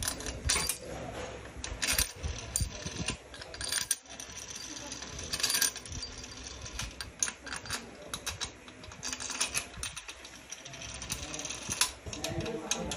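Steel main-bearing bolts clinking against metal as they are set into the holes of an aluminium engine bearing carrier and turned in by hand: an irregular string of sharp metallic clicks and taps.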